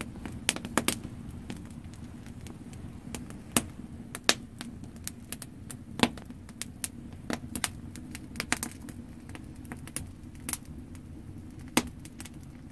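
Wood campfire in a metal grate crackling, with sharp irregular pops about three a second over a steady low rumble of the burning.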